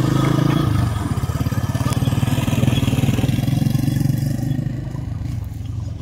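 Motorcycle engine running as the bike passes close by; its note changes about a second in and the sound fades away near the end.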